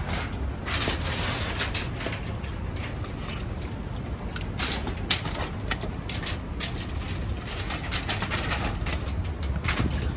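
Busy street ambience: a steady low rumble of road traffic, with frequent sharp clicks and knocks and a short hiss about a second in.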